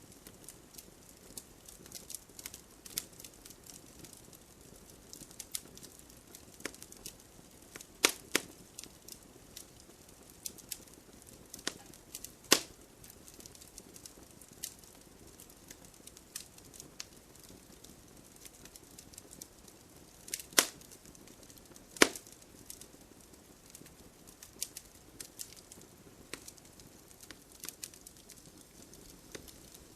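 Wood campfire crackling steadily, with scattered sharp pops; four louder pops stand out, about 8, 12, 20 and 22 seconds in.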